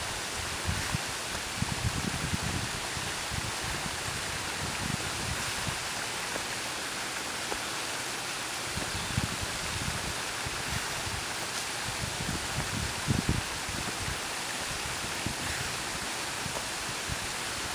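Steady rushing hiss of a small waterfall spilling over rocks into a pond, with a few irregular soft low thumps over it.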